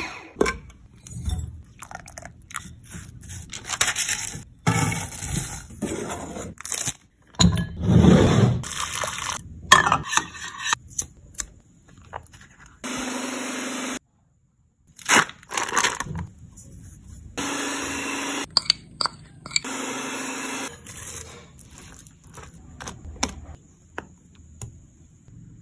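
A run of kitchen prep sounds with glass bowls: crunching from an electric food chopper holding ground chocolate sandwich cookies, cream poured into a glass bowl, three short runs of a small electric motor in the middle, and a spatula scraping a thick mixture around a glass bowl near the end.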